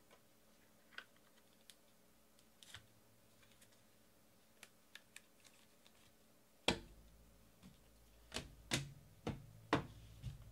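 Sparse light clicks, then from about two-thirds of the way in several louder knocks and taps as trading-card boxes and cards are handled on a table.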